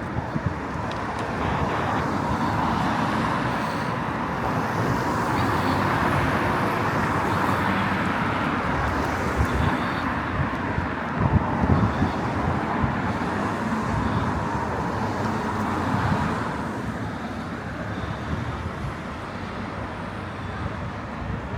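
Steady road traffic noise on a busy town street: cars passing with tyre and engine noise, easing a little toward the end.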